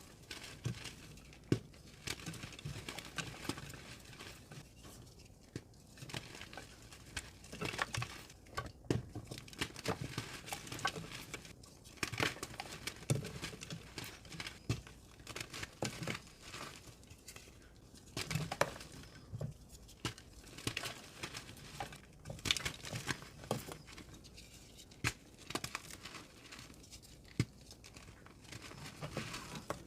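Reformed gym chalk being crushed and crumbled, a dense run of irregular dry crunches and crackles.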